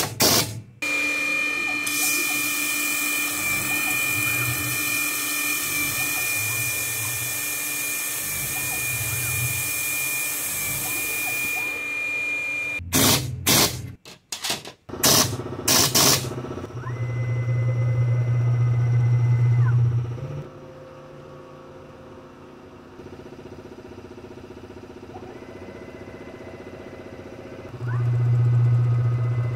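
CNC-converted PM-30 benchtop milling machine running: a steady spindle whine under a high hiss from the fog buster mist coolant for the first dozen seconds, then a few sharp clicks. Twice after that the spindle spins up with a loud low hum and a whine that rises, holds and falls away.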